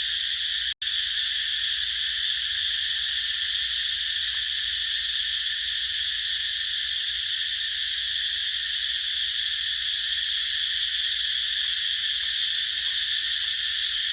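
A chorus of cicadas buzzing steadily, a dense high-pitched drone that never lets up, broken by an instant of silence about a second in.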